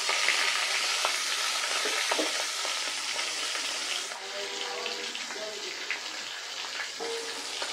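Rohu fish head frying in hot sunflower oil in a karahi, a dense sizzle with a few knocks of the metal spatula against the pan. The sizzle eases about four seconds in.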